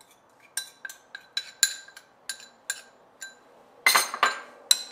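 Spoon and ceramic bowls clinking as seasoning paste is scraped out of a small bowl onto the lamb: about nine sharp, ringing clinks spaced a quarter to half a second apart, then a louder flurry of clatter about four seconds in.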